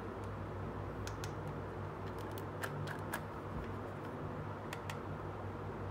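Scattered sharp plastic clicks and taps from a small pink toy camera being handled and turned over in the hands, about eight in all, some in quick pairs, over a steady low hum.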